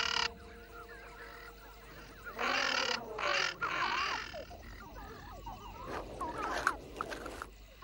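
Coelophysis dinosaur calls created by sound design: harsh screeching calls about two and a half and three and a half seconds in, another shorter one near the end, and small chirps between them.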